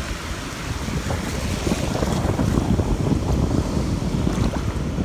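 Surf washing in over a shallow beach, with wind buffeting the microphone in a heavy low rumble.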